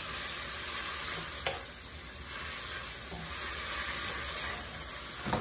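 Pea sprouts sizzling and frying in a steel wok over high heat while a wooden spatula stirs them, a steady frying hiss. There is one sharp click about one and a half seconds in.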